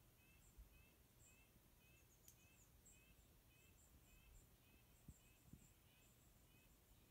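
Near silence: faint forest ambience with a faint, high chirp repeating evenly about three times a second.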